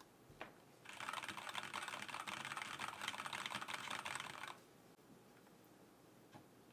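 Fast typing on an ErgoDox EZ split mechanical keyboard with Kailh Black switches: a dense run of key clacks starting about a second in and lasting about three and a half seconds, then stopping.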